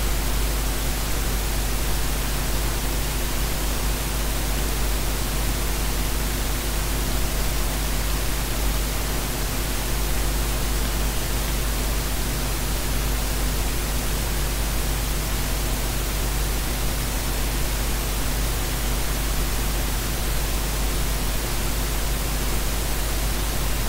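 Welding arcs hissing steadily and evenly, with a steady low hum underneath.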